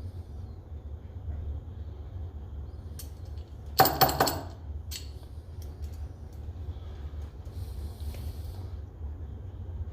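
Small metal parts clinking several times in quick succession against a hard surface about four seconds in, with a few single light clicks before and after, over a steady low hum.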